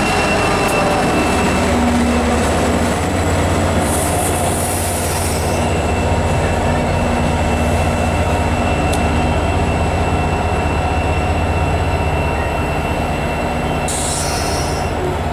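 Diesel-hauled commuter train of Comet coaches rolling slowly past and braking into a station stop behind its GP40PH-2 locomotive: a steady low rumble with a thin squeal from the wheels and brakes. Two short bursts of hissing air come about four seconds in and near the end.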